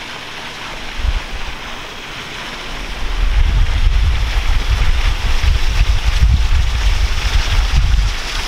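Wind buffeting the microphone, a heavy low rumble that sets in about three seconds in, over the steady splashing of pool fountains spilling from the wall into the water.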